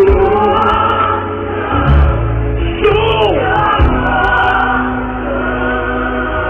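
Live gospel music: a choir singing long held notes over a band with heavy bass.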